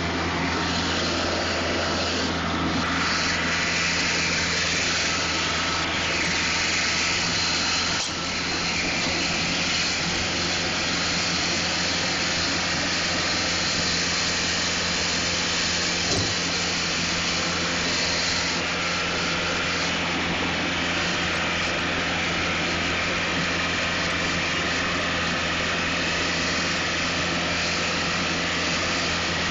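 John Deere 4500 compact tractor's three-cylinder diesel engine running steadily while mowing grass, a constant hum with a wash of mower and machine noise over it. The sound dips briefly about eight seconds in.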